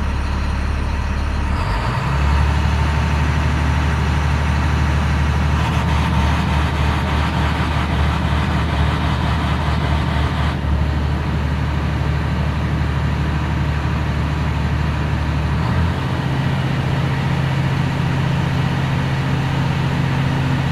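2010 MaxxForce DT inline-six turbo diesel running through a key-on engine-running standard test. Engine speed steps up about two seconds in and again about sixteen seconds in, then holds steady at a raised speed of about 1,500 rpm.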